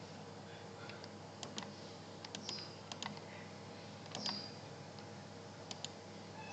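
Computer mouse button clicking, about a dozen sharp clicks, mostly in quick pairs, over a faint steady hum. A few short high chirps sound between them.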